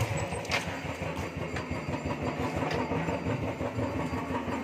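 Motorcycle engine running with a fast, uneven low throb.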